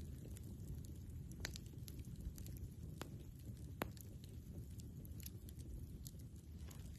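Campfire crackling: scattered sharp pops and snaps from the burning wood over a low steady rumble, with a few louder pops near the middle.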